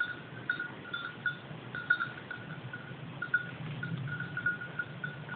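Small bell on a young hunting dog's collar ringing in quick, irregular jingles with short pauses as the dog moves through the brush working a scent trail.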